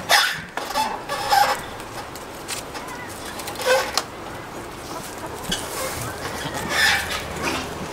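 Chickens clucking: several short calls spaced a few seconds apart.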